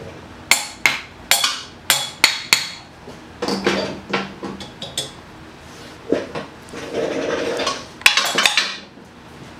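Light metallic taps and clinks as a Honda CT90's cylinder is coaxed down over the piston and its compressed rings. About six sharp taps come in the first three seconds, a short scraping stretch follows later, and a quick cluster of clinks comes near the end.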